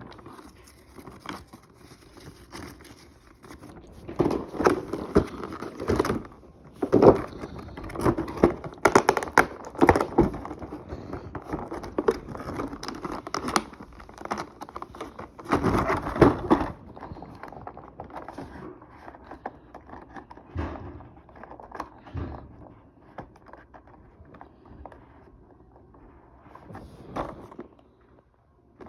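Action-figure packaging being handled and opened by hand: irregular crinkling, rustling and scraping with scattered sharp clicks. It is busiest in the first half and thins out toward the end.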